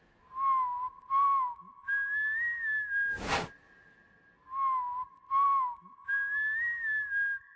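A whistled tune plays a short bending phrase that moves between a low and a high pitch, then repeats it. A sweeping noise hit cuts across it about three seconds in.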